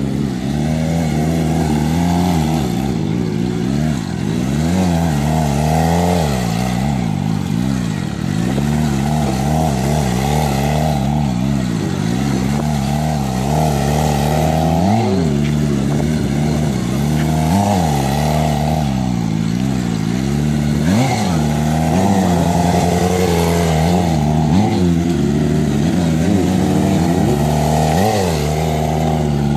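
Suzuki GSX-R600 stunt bike's inline-four engine running hard through a sustained wheelie, its revs rising and falling every few seconds as the rider works the throttle to hold the balance point.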